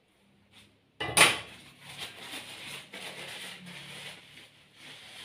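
A sharp kitchen clatter about a second in, like a dish or utensil knocked on the counter, then steady rustling of tissue paper rubbed around a small glass cup as the oil is wiped off it.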